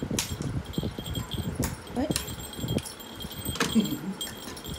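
A small jingle bell tinkling on and off as a playing cat moves about, with a few sharp clicks.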